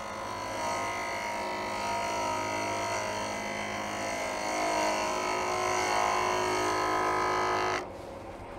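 Half-inch bowl gouge cutting across the face of a spinning pine blank on a wood lathe: a steady whining cut with many tones over the hum of the lathe, growing a little louder, then stopping suddenly near the end as the tool comes off the wood.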